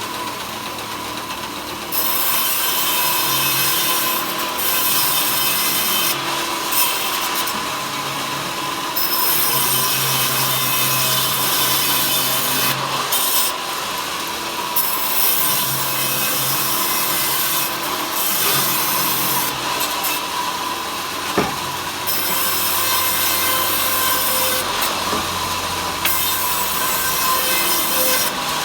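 Power saw cutting wood into thin slats: a loud rasping cut comes in about two seconds in and stops and restarts several times as pieces go through, over a steady machine tone.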